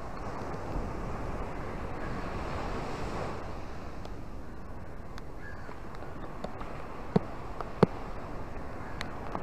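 Small surf waves washing up a sandy beach: a steady rush that swells about two to three seconds in and then eases. A few sharp ticks stand out near the end, two of them louder than the surf.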